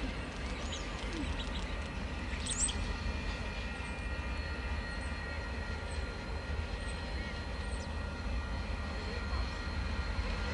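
Distant DFB diesel-electric locomotive approaching: a steady low rumble with thin, steady high-pitched tones over it. A few bird chirps, the clearest about two and a half seconds in.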